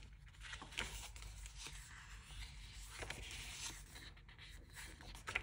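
Soft, faint paper rustling and sliding as the pages of a printed diary are turned, with a few light ticks of paper.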